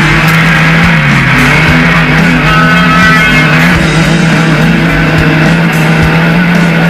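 Off-road race vehicle engine running hard at a steady high pitch, dipping briefly about a second in, with rock music mixed underneath.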